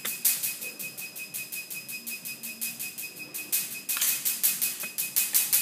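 A machine running with a rapid, even ticking rattle, about six ticks a second, over a steady high whine; it gets louder about four seconds in.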